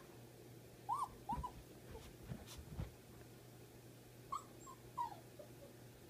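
Small dog whimpering in short, high whines: a pair about a second in and three more near the end, the last one sliding downward. A few soft thumps fall in between.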